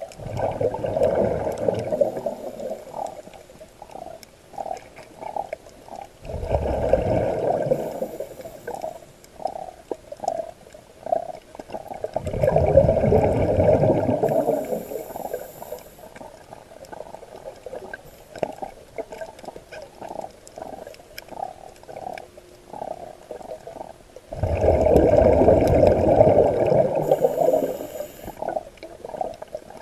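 Scuba diver breathing underwater through a regulator: four long rumbling surges of exhaled bubbles several seconds apart, with short bubbling pops in between.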